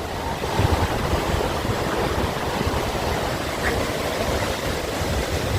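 Multnomah Falls' falling water: a steady rushing noise, heavy in the low end, with an irregular low rumble.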